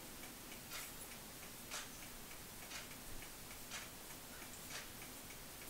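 A clock ticking faintly and evenly, about one tick a second, over low room hiss.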